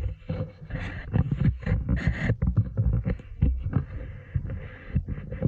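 Wind buffeting a 360° camera's microphones in irregular low rumbling gusts, with uneven knocks of handling noise as the camera is carried on a selfie stick.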